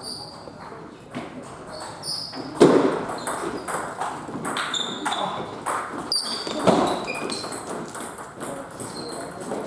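Celluloid-style table tennis ball being struck by rubber-faced bats and bouncing on the table in a rally, a quick series of sharp clicks. Short high squeaks, typical of sports shoes on the hall floor, come in between, along with two louder knocks.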